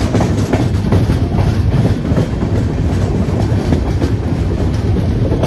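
Coromandel Superfast Express passenger coach running along the track, its wheels clattering irregularly over rail joints under a steady rush of noise, heard from an open coach doorway.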